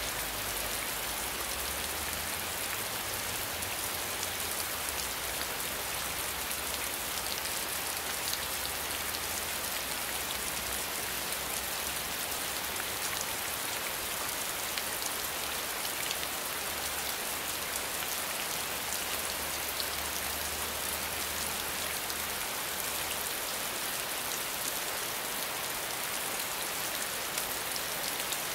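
Steady rainfall: an even hiss of many drops, with single drop ticks standing out now and then.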